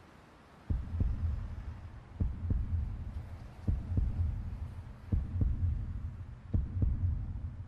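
Heartbeat sound effect: low paired lub-dub thumps, a double beat about every second and a half, starting just under a second in. It stands for a character's pounding heart.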